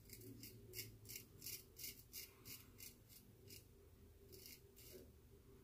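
Faint crisp scraping of a shavette (straight-razor style) blade cutting through lathered stubble, in short quick strokes about three a second, pausing briefly a little past halfway before a few more strokes.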